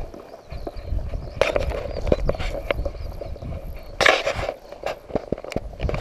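Footsteps and rustling through tall grass, with wind rumbling on a body-worn camera's microphone. There are scattered light clicks and two louder swishes, about one and a half and four seconds in.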